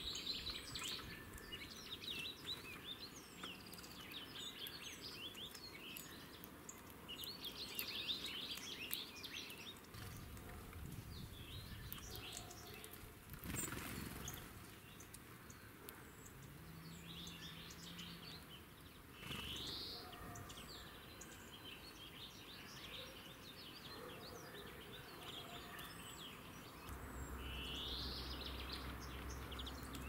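Small wild songbirds chirping and calling, many short high notes with a few quick rising calls, over faint outdoor background noise. A low steady drone comes in near the end.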